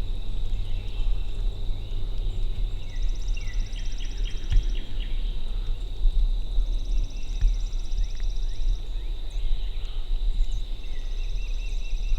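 Songbirds singing: a fast high trill repeated three times, with a few short chirps, over a steady low rumble of wind or handling on the microphone.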